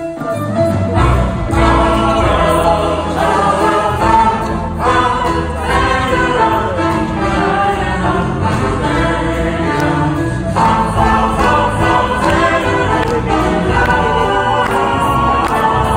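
A tenor singing into a microphone over a string orchestra, amplified through the hall's loudspeakers; the orchestra's bass comes in about half a second in and the music runs on steadily.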